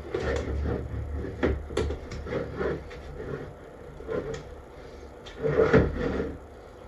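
Irregular knocks, taps and rubbing of things being handled.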